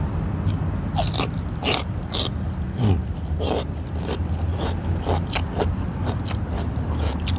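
Close-up mukbang eating sounds of a mouthful of boiled cabbage being bitten and chewed, with irregular crunches and mouth clicks. A low steady hum runs underneath.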